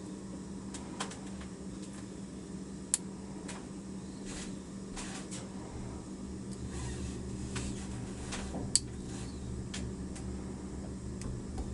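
Faint metallic clicks of a lock pick and tension wrench working the small pin tumblers inside a Master Lock No. 7D laminated padlock, two sharper clicks standing out about 3 seconds in and near 9 seconds, over a steady low hum.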